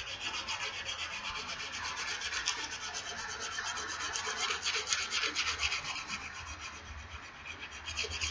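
Sandpaper rubbed back and forth in quick, even strokes across the bevel of an axe head, sharpening the edge.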